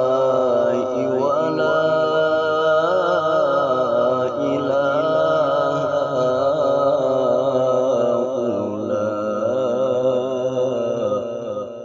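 A qari's solo voice reciting the Quran in melodic tilawah style, drawing out one long ornamented melisma with wavering pitch and vibrato. The line carries on without a break and fades away near the end.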